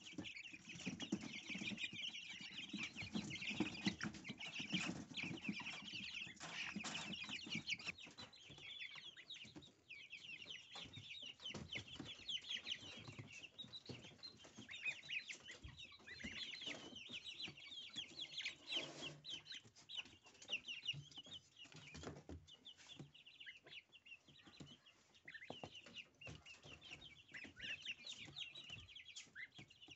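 Domestic goslings peeping continuously, a dense stream of high, rapid chirps, with small clicks as they peck at dill. A lower, softer sound sits beneath the peeps for the first several seconds.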